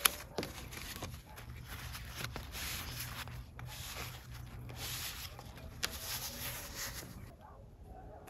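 Thin lavash flatbread rustling and crinkling as it is folded over a filling of meat and pepper strips and rolled up by hand, after a sharp tap at the start. A faint wavering animal call comes in near the end.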